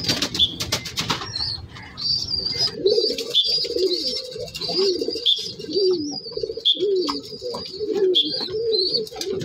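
Gingging pigeons flapping their wings in the first second or so, then cooing in a steady run of short calls, a little more than one a second, with thin high chirps mixed in.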